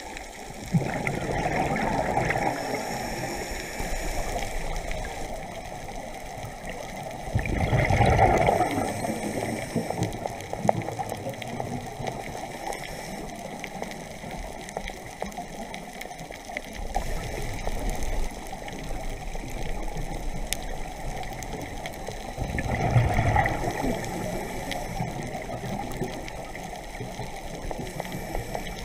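Heard underwater: a scuba diver's exhaled bubbles from a regulator, coming in gushing surges, the strongest near the start, about eight seconds in and again near twenty-three seconds, over a steady underwater rush.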